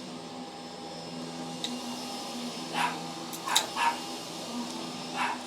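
A vacuum cleaner runs steadily in the background with an even hum. A dog gives a few short yips near the middle.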